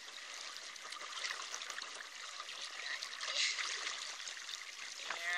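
Water rushing and trickling along the hull of a small sailboat under way, a steady hiss.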